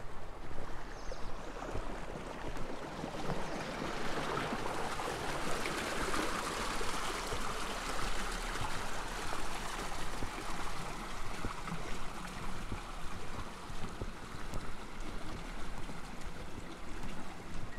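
Water flowing in a concrete roadside irrigation channel, a steady rush that grows louder about four seconds in and eases off toward the end.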